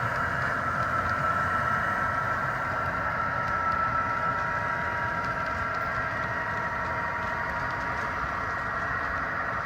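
HO scale model train running on the layout: a steady small-motor whine over a low rolling rumble of wheels on rail.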